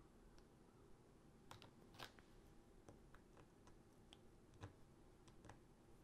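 Near silence with a few faint, scattered light clicks of a diamond-painting drill pen setting drills onto the canvas.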